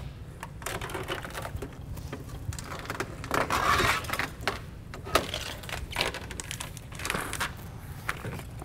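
Old rubber door-to-body weatherstrip on a Fox Body Mustang being pulled off the metal pinch weld around the door opening: irregular crackling and sharp clicks, with a denser stretch of scraping about three and a half seconds in.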